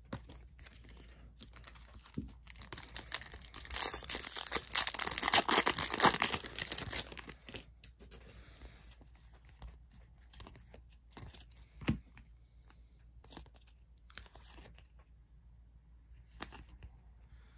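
Trading cards and their foil pack wrapper handled: a crinkly, tearing rustle for several seconds, loudest about four to six seconds in. Then come scattered light clicks and taps of cards being flipped.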